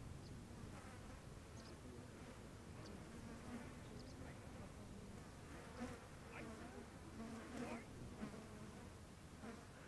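An insect buzzing faintly, coming and going and stronger about two thirds of the way through, over a low steady rumble.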